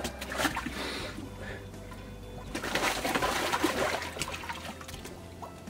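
Near-freezing water sloshing in a portable ice-bath tub as a man lowers himself in up to his neck, with his breathing and low vocal sounds from the cold. The sloshing is loudest a little before the end.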